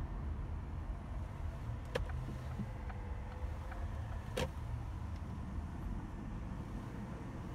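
Car driving noise heard from inside the cabin: a steady low rumble of road and engine, with two sharp clicks, one about two seconds in and another about four and a half seconds in.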